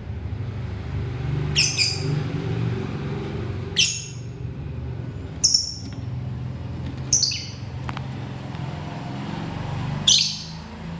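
Lovebird giving short, shrill chirps a second or two apart, the first one doubled, over a steady low rumble.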